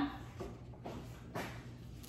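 Faint rustling as a large sheet of printing paper is handled and moved, with three soft rustles about half a second apart.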